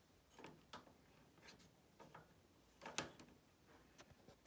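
Near silence with faint, irregular clicks and ticks, the loudest about three seconds in.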